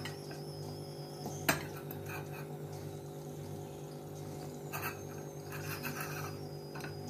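Chunks of fresh coconut dropped by hand into a stainless-steel mixer-grinder jar: one sharp clack about a second and a half in, then a few soft taps and rattles near the end, over a steady low hum.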